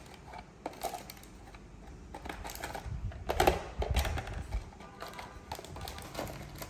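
Hands rummaging through a plastic first-aid box: irregular light clicks and knocks of small medicine boxes and packets against the plastic, with some rustling of packaging. The loudest knocks come about three and a half to four seconds in.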